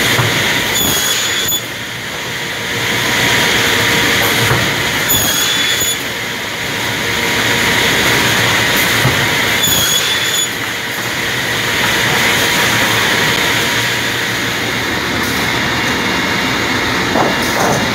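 Automatic push-feed crosscut saw with a 700 mm blade running steadily under load. Three short, shrill, high-pitched sounds come about four to five seconds apart as the machine cycles through its cuts, each followed by a brief drop in the running noise.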